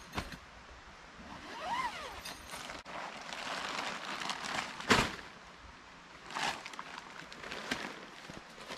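Nylon tent fabric rustling and crinkling in irregular bursts as a tent is pulled from its bag and spread out on the ground, with one sharp snap about five seconds in.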